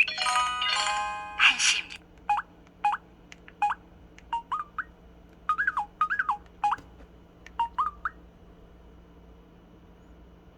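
Samsung SPH-W8300 Magic Hole phone's built-in sound effects through its small speaker. A short, bright electronic chime plays first, then a run of clicks and brief electronic blips, some sliding up or down in pitch, which stops about eight seconds in.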